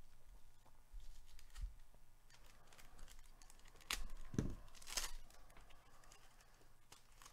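Foil trading-card pack crinkling and being torn open by hand, with the sharpest rips about four and five seconds in, then the cards sliding out.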